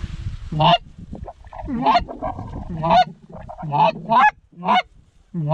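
A series of loud goose honks, about one to two a second, each a short honk that rises in pitch, with wind noise on the microphone at the start.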